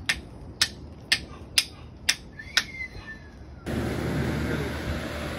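A toddler's small hammer tapping a broken concrete slab: sharp knocks about two a second, six in all. About two-thirds through, the knocking gives way abruptly to a steady outdoor background noise.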